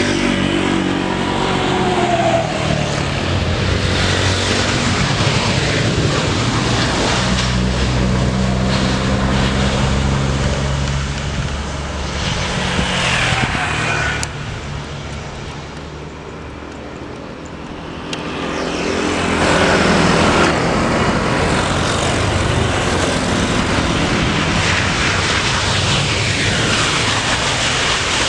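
Jet airliner engines on an arriving Airbus A320 passing close by, the engine whine sweeping down in pitch as it goes and the noise fading. About two-thirds of the way in, a second jet, an arriving Airbus A350, takes over with the same loud engine noise.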